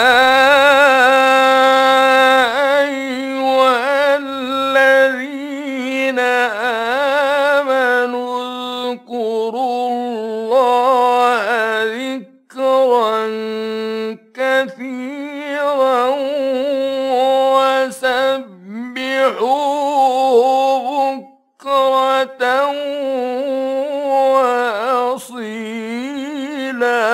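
A male Quran reciter chants in the melodic tajwīd style: long, held, ornamented notes that bend up and down, with a few short pauses for breath.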